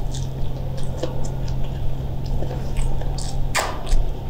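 A person chewing food close to the microphone: wet mouth clicks and smacks, with one louder smack near the end.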